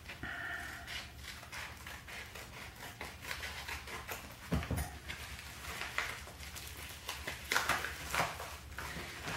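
Crinkling and rustling of a plastic padded postal mailer as it is cut and torn open by hand, in short irregular crackles, with one dull thump about halfway through.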